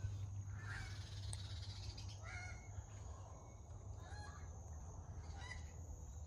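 Faint bird calls: a few short, separate calls a second or two apart, over a steady low hum.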